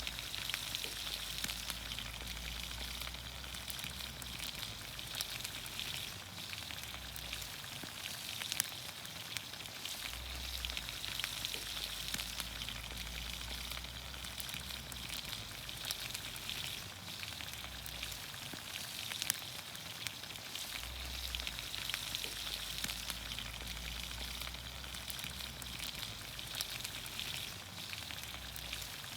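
Vegetables in olive oil sizzling over a campfire: a steady hiss with scattered sharp crackles.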